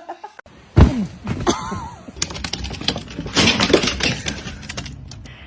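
A loud thud, followed by a rapid clatter of knocks and clicks.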